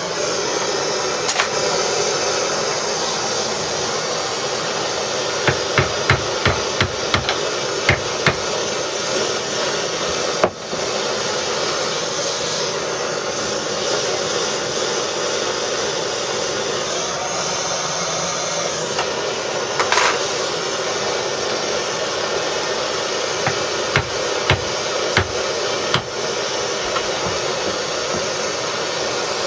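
Two runs of short, sharp metallic taps at a bench vise: about six in quick succession some six seconds in, and four more near the end, with a few single knocks between them. A steady rushing noise runs underneath throughout.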